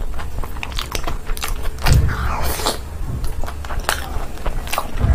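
Close-miked chewing of a mouthful of chicken: a run of wet mouth clicks, with a low thud about two seconds in and another near the end.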